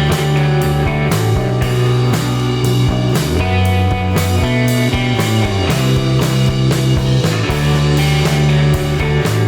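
Background music: a rock-style track with guitar and a steady drum beat.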